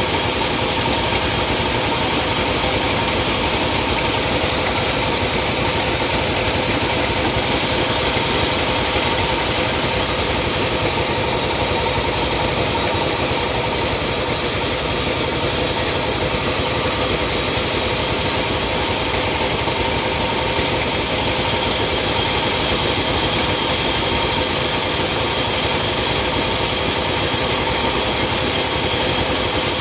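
Sawmill machinery running steadily: a constant loud hum and whine with a few fixed tones that never change.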